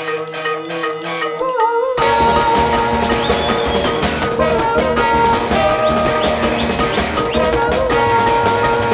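Live instrumental passage by a band with trombone, trumpet and marimba. About two seconds in, drums and bass come in and the full band plays together.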